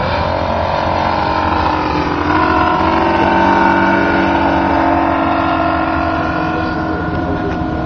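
Robart R780 seven-cylinder radial engine of a scale model Fairchild PT-23 droning in flight. Its pitch falls in the first second, rises and grows louder about two seconds in, then holds steady.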